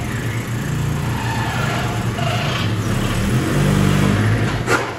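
Honda Civic's D16Y8 four-cylinder engine running at low revs as the car is driven slowly up onto drive-on ramps, the revs and loudness rising a little in the last couple of seconds. A sharp clunk comes near the end.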